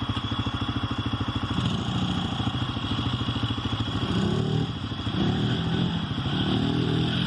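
Quad bike (ATV) engine running with a fast, even pulse, its revs rising and falling repeatedly in the second half.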